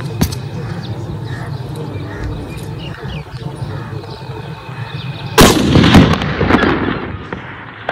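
A single rifle shot from a POF G3A3 battle rifle firing 7.62×51mm ball ammunition, about five seconds in, its echo trailing off for about two seconds.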